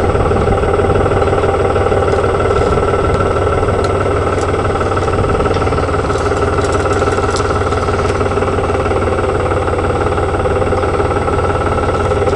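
Front-loader farm tractor's engine running steadily at an even speed, with a few faint light clicks midway through.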